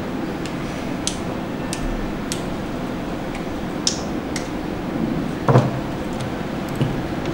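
Scattered sharp clicks of computer mice in a room full of desktop PCs, about one or two a second, over a steady background hum; one louder, duller knock comes about five and a half seconds in.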